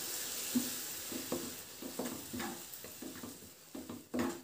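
Steel ladle stirring thick ground coconut masala in a kadai over a gas flame, with a few short scrapes and taps against the pan, over a sizzle that fades away.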